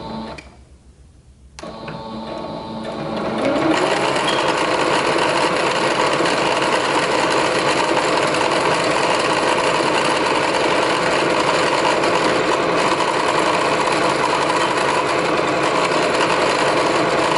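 Singer Stylist 7258 electronic sewing machine stitching fabric, run from its start/stop button rather than the foot pedal. It starts about a second and a half in, speeds up with a rising whine over the next two seconds, then runs steadily at full speed.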